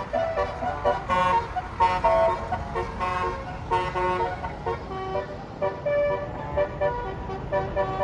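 Bus's Basuri telolet horn, a set of air-horn trumpets, playing a quick tune of changing notes over a low rumble.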